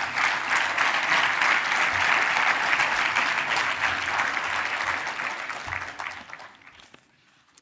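Audience applauding in a hall. The clapping is at its fullest over the first few seconds, then thins out and dies away near the end.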